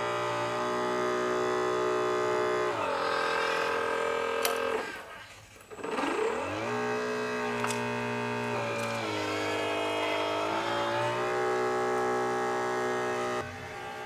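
1/14-scale Liebherr 944 Litronic RC hydraulic excavator running, its pump whine stepping up and down in pitch as the boom and bucket work; the sound sags almost to nothing around the middle and glides back up.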